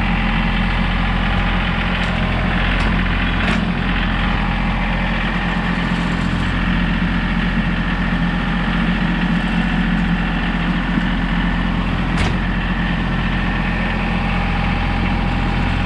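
A John Deere compact tractor's three-cylinder diesel engine runs steadily while the loader works a log grapple. A few short sharp clicks or knocks come through, twice close together early and once near the end.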